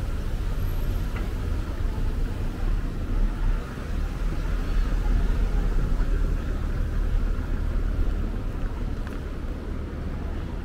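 Street traffic: a steady low rumble of passing vehicles that swells for a few seconds midway.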